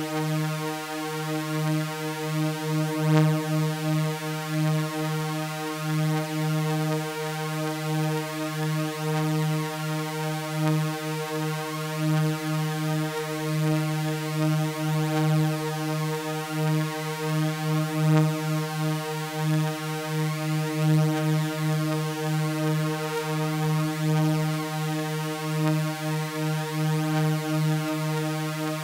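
Synthesized drone of sawtooth waves held on one unchanging chord pitched around 155 Hz, rich in overtones. The tones beat against each other in a slow, uneven wavering pulse.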